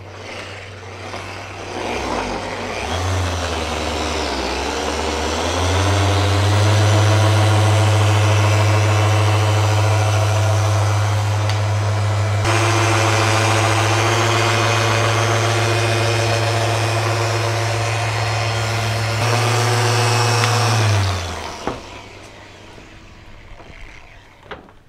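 Electric buffer (polishing machine) running with a pad against a boat's surface. It spins up over the first few seconds, runs steadily, and winds down and stops about 21 seconds in. This is the polishing pass on a test spot, to check that the abrasion is removing the oxidation.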